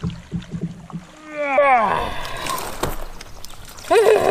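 A largemouth bass being reeled in through surface weeds, with a quick run of clicks and splashes. About a second in comes a loud, drawn-out vocal cry falling in pitch, and a shorter one near the end, as the angler reacts while landing the fish.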